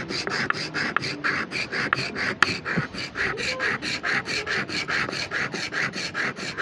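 Steel plane iron being rubbed back and forth on a wet carborundum oil stone to sharpen its dulled edge: an even, fast rasp of about four and a half strokes a second. One sharp click about two and a half seconds in.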